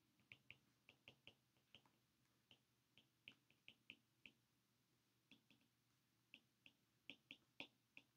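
Near silence with faint, irregular ticks, several a second, of a stylus tip tapping on a tablet's glass screen while handwriting.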